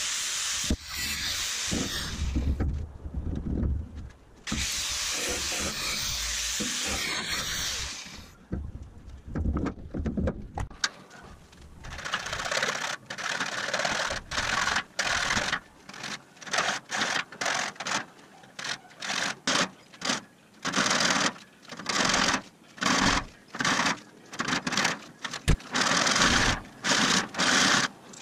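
An angle grinder runs steadily on steel for the first several seconds, cutting out briefly twice. From about twelve seconds on, a hand hacksaw saws through a steel frame rail in quick back-and-forth strokes, about two a second.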